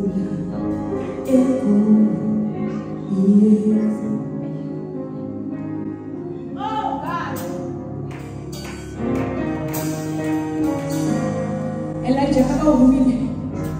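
Slow worship music: a woman singing into a microphone over sustained, held instrumental chords, her voice swelling near the end.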